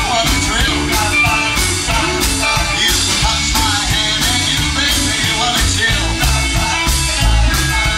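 Rockabilly-style rock and roll song: a singer over guitar and a steady drum beat.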